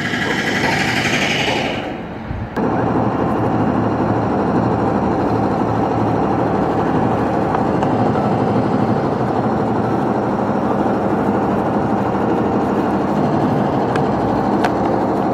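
Water glugging steadily out of a large plastic bottle into a plastic bucket.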